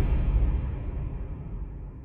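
Bass-heavy electronic background music fading out, the treble gone and only the low end dying away.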